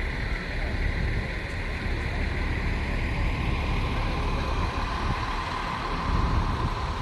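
A motor vehicle engine running steadily, its whine drifting slowly lower in pitch over a heavy low rumble.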